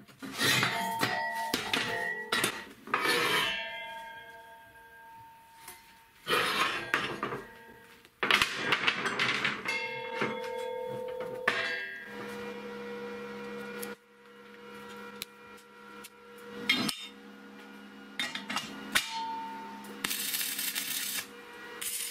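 Steel parts clanking and knocking against a square steel-tube frame, the tubing ringing on after the hits. Near the end come short bursts of welding crackle.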